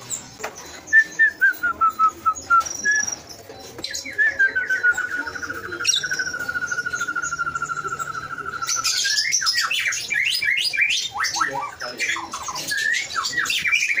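Caged lovebirds calling: a short falling series of notes about a second in, then a long, very rapid trill lasting about five seconds, the drawn-out chatter lovebird keepers call ngekek. From about nine seconds in, many birds break into quick, overlapping chirps.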